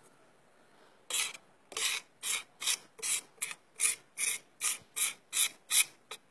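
About a dozen rhythmic rasping scrapes, roughly two and a half a second, begin about a second in. They come from a lump of animal fat being rubbed and pressed against a gritty marble slab as it is worked into sivo, tallow grease for oars.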